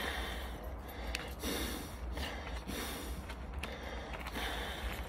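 A man breathing heavily and repeatedly through his mouth, out of breath after exertion, over a steady low rumble.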